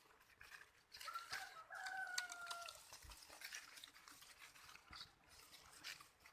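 A rooster crowing once, faintly, about a second in: a short first note, then a longer held one that falls slightly in pitch.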